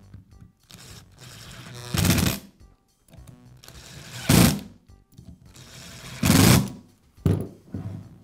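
Power screwdriver driving three screws into a plastic tool housing. Each screw runs in for about a second and ends in a short, loud burst as it seats. The bursts come about two seconds apart, with a few lighter handling sounds near the end.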